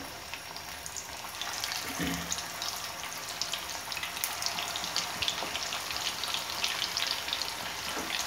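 Mutton kofta balls deep-frying in hot oil in a pan: a crackling sizzle that grows louder and busier about a second and a half in as more balls go into the oil.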